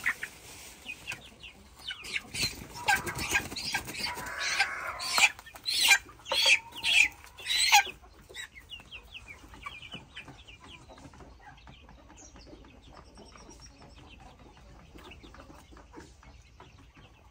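Chickens clucking and squawking, loudest in a run of sharp calls about half a second apart in the first half, while young chicks are caught and handled for drop vaccination. After that come fainter, scattered chick peeps.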